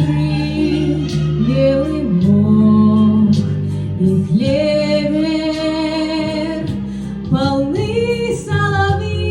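A woman singing a Russian love song in long, drawn-out notes over a steady instrumental accompaniment.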